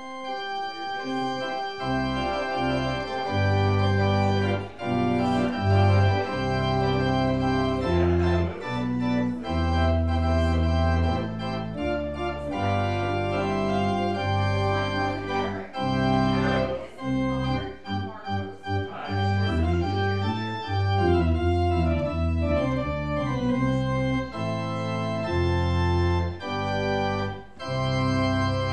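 Organ music: sustained chords that change every second or two over a low bass line, which enters about two seconds in.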